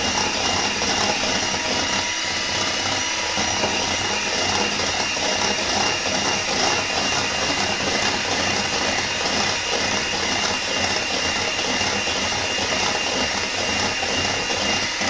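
Electric hand mixer running steadily at speed, its beaters whipping sour cream and sugar in an enamel bowl.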